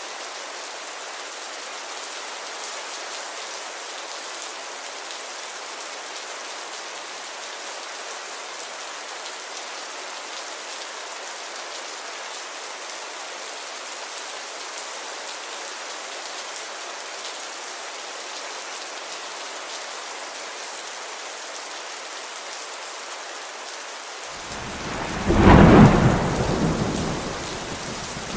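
Steady rainfall hiss. Near the end a loud thunderclap breaks in and dies away over a few seconds.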